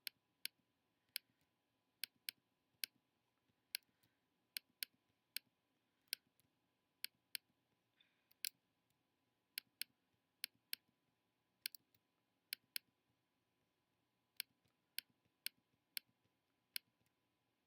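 Computer mouse clicking: single sharp clicks at an irregular pace, roughly one or two a second, with a pause of about a second and a half near the end.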